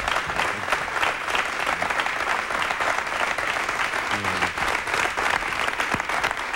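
Studio audience applauding, a dense steady clapping with a brief voice calling out about four seconds in.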